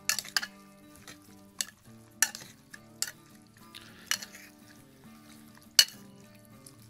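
Metal tongs stirring and tossing a wet mix of chopped chicken and bacon in buffalo sauce and ranch dressing in a glass bowl, with irregular sharp clinks of the tongs against the glass. The loudest clink comes a little before the end.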